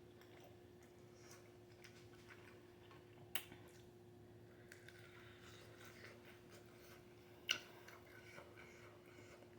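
Near silence: faint room tone with a steady low hum, broken by two short, sharp clicks, one about three seconds in and one near eight seconds, and a few fainter ticks.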